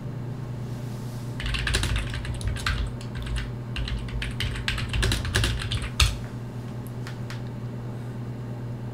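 Typing on a computer keyboard: a rapid run of keystrokes lasting a few seconds, ending with a louder keystroke about six seconds in, over a steady low hum.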